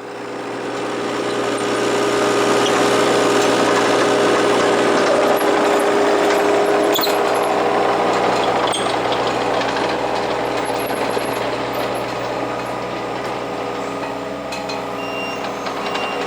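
Hitachi 35 mini excavator's diesel engine running under working load, with a steady hum and machine noise. It swells over the first couple of seconds and then holds steady.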